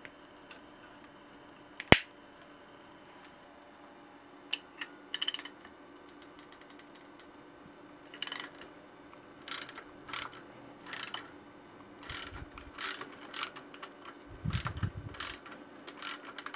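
Side cutters snipping through a bicycle brake cable with one sharp snap, then a socket ratchet clicking in short repeated runs as it turns the handlebar stem bolt.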